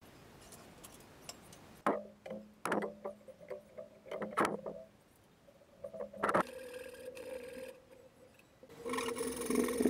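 Several sharp knocks of wooden pieces being handled and set down on a wooden workbench, then a steady hum from about six and a half seconds in.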